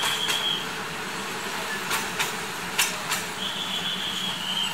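Passenger train rolling into the station: a steady rumble with sharp clicks of the wheels over rail joints, and a high steady squeal at the start and again from about three and a half seconds in.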